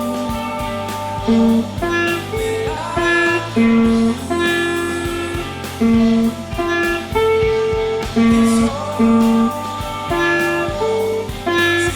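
Instrumental guitar music: a melody of held notes changing about every half-second over a steady low bass line.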